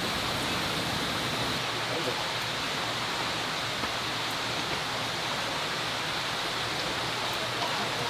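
Mountain valley stream running steadily over rocks and small stepped pools, a constant rush of water.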